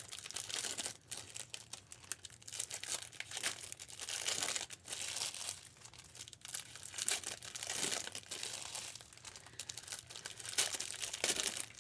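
Plastic wrapping of trading-card packs being crinkled and torn open by hand: a continuous, irregular crackling.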